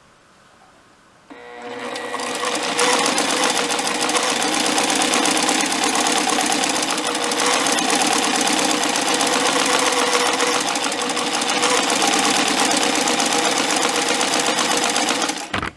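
Antique sewing machine stitching a straight seam through fabric: it starts about a second in, speeds up over the next second or so, runs steadily and fast, and stops abruptly just before the end.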